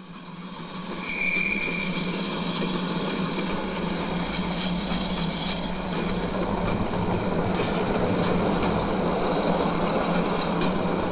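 Model garden railway train running along its track: a steady rumble of wheels on the rails, with a steady low hum under it. The sound fades in at the start.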